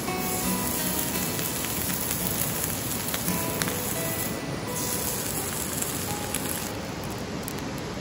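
Slice of rare beef sizzling on a hot steel griddle plate over a wood fire as its surface is seared. The sizzle breaks off briefly about halfway and dies away near the end, with soft background music underneath.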